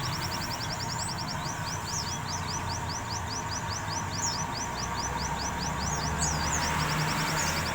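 White-eye (pleci) chattering in a fast continuous string of short high chirps, about ten a second, with a few sweeping notes mixed in. This is a wild-caught bird that has begun to 'ngeriwik'.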